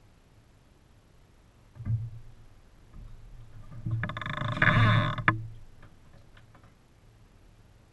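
A fish spear thrust down through the ice hole at a pike: a loud burst of splashing and scraping lasting about a second that ends abruptly, after a single sharp knock a couple of seconds earlier.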